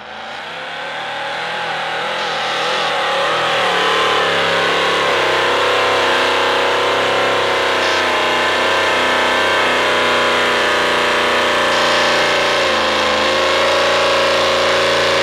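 Big-block 460 V8 of a lifted Ford mud truck with chrome exhaust stacks, running and revving as it pushes through mud. The engine fades in over the first few seconds with its pitch rising and falling under the throttle, then holds a steady rev.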